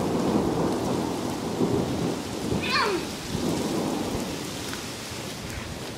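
Heavy rain pattering and splashing on a wet concrete sidewalk, under a low rumble of thunder that slowly fades.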